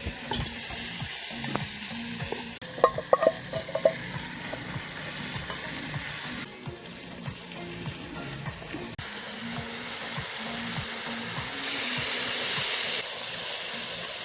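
Food sizzling steadily as it fries in a pot over a campfire, with a few sharp clicks about three seconds in.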